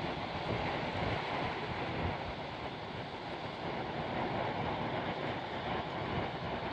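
Ocean surf breaking and washing in, with wind buffeting the microphone: a steady rushing noise with no let-up.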